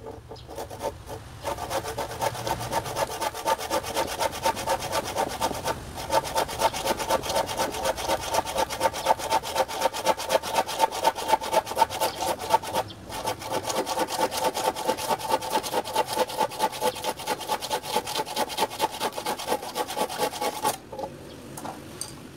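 Handsaw cutting through an old wooden plank in quick, even back-and-forth strokes, about three a second, with two short pauses; the sawing stops shortly before the end.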